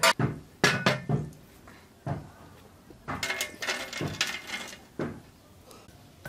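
Cooking pot and utensils being handled: a string of separate knocks and clinks, about a dozen scattered through the few seconds, a few with a short metallic ring.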